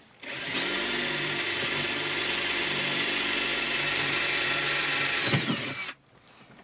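Power drill running at a steady speed for about five seconds with an even whine, then released, its pitch falling as it spins down and stops.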